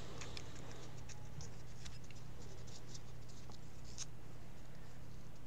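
Small scratching and clicking handling noises from hands working on a laptop adapter cable and its tape and wires, over a steady low hum.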